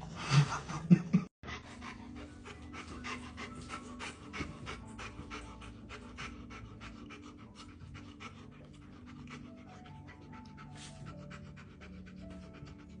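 A dog panting rapidly and steadily, with faint background music. A few louder sounds in the first second end in an abrupt cut before the panting.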